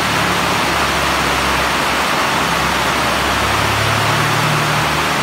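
Very heavy rain pouring onto a station platform, its canopy roofs and the tracks: a loud, steady hiss. A low hum runs underneath and shifts slightly higher about three and a half seconds in.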